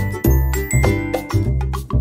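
Upbeat background music with a steady bass beat and bright bell-like notes.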